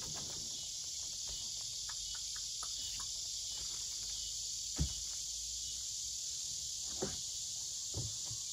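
Steady high-pitched chorus of insects outdoors, with a few short knocks as things are handled inside a wooden shed; the loudest knock comes about five seconds in.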